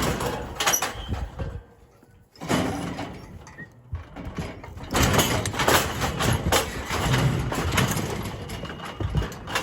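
Metal cattle chute and gates rattling and clanging as heifers are worked through, with a brief lull about two seconds in.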